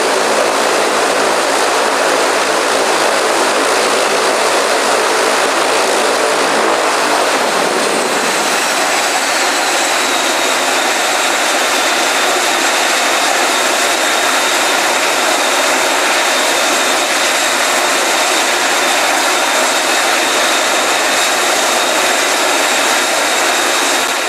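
ATR 42-300's Pratt & Whitney PW120 turboprops running on the stand. About seven seconds in, the propeller drone falls away as the propellers wind down to a stop. A high turbine whine glides down and then holds steady over a continuing rush of engine noise.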